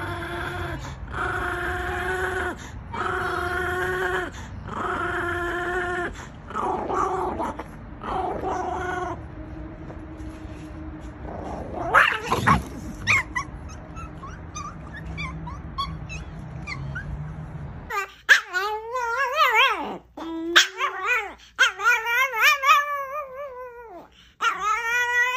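Chihuahuas whining: for the first several seconds a run of long, even-pitched whines about every second and a half, then one rising yelp about halfway through, then wavering, up-and-down whines over the last few seconds.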